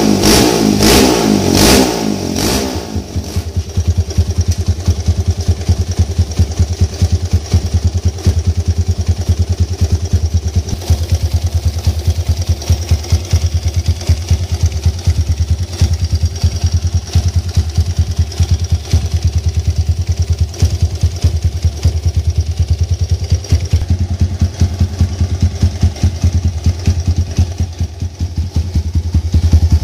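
Trail motorcycle running on a Honda Tiger single-cylinder four-stroke engine: revved a few times at the start, then idling steadily with an even exhaust beat, as a test of its exhaust sound.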